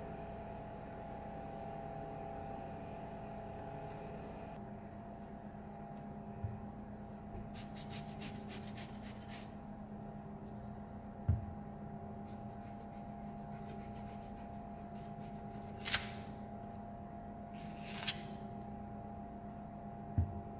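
Red onion being peeled with a knife on a wooden cutting board: scattered soft knocks, ticks and scrapes of skin and blade, the loudest a thump about eleven seconds in. Under it runs a steady background hum.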